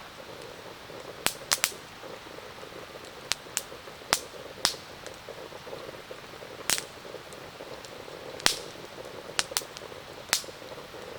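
Wood campfire crackling, with a dozen or so sharp, irregular pops, over a steady bubbling hiss from the coffee percolator coming to the boil.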